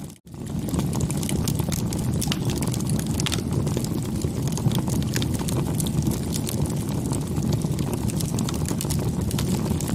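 Wood fire burning, with frequent sharp crackles and pops over a steady low rumble. The sound cuts out briefly just after the start, then carries on.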